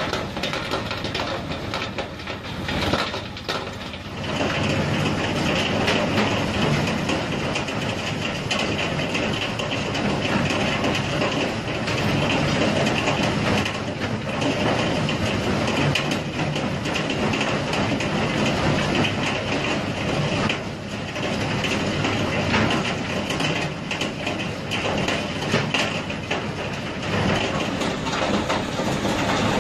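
Industrial shredding machine running, with continuous grinding and crackling as it chews through material, louder from about four seconds in.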